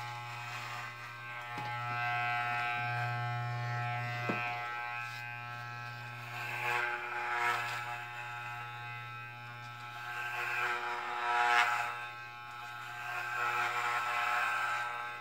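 Corded electric hair clippers buzzing steadily as they shave the head, growing louder and raspier in several passes as the blades cut through short hair.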